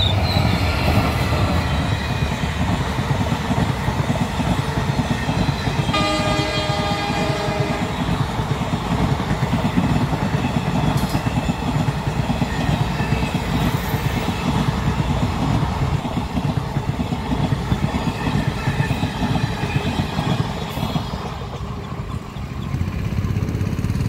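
Indian Railways diesel locomotive passing close by at the head of an express passenger train, its engine and the coaches' wheels making a steady rumble with rattling over the rail joints. The locomotive's horn sounds once for about two seconds, about six seconds in.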